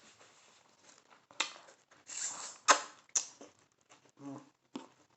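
Close-up eating and food-handling noises from a mukbang: sharp clicks and taps with short wet, slurping bursts, the loudest about two and a half seconds in. A brief low hummed "mm" comes near the end.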